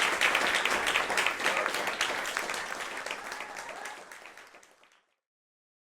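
Audience applauding, fading out steadily and stopping about five seconds in.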